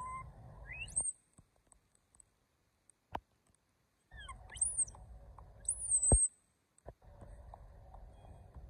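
Young macaques giving high, thin squeaking calls that sweep upward in pitch, in three short bouts. A single sharp click falls between the first two bouts, and a sharp knock comes at the end of the last.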